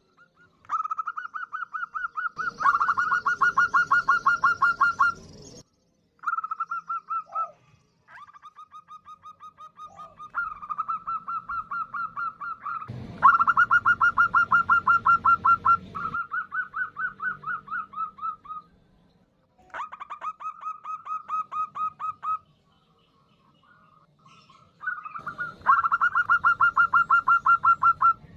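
Female zebra dove (perkutut) calling: repeated bursts of rapid, evenly pulsed notes, several a second, each burst lasting two to three seconds with short gaps between. Three of the bursts are louder and harsher. This is the female's call to draw males, used as a lure.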